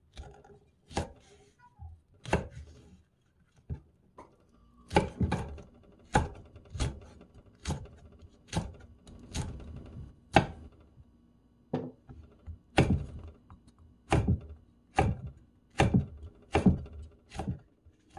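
Chef's knife chopping green onions and green chilies on a wooden cutting board: single sharp knocks of the blade on the board, about one a second, with short pauses.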